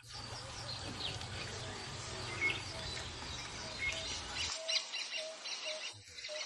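Wild birds chirping and calling over a steady low rumble and hiss, which cuts off suddenly about four and a half seconds in. After that, short low notes repeat about twice a second.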